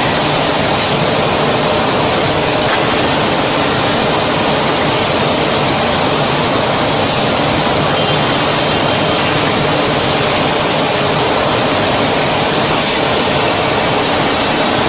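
Woodworking machinery of a finger joint line running: a loud, steady, even noise that does not let up, with a few faint short chirps.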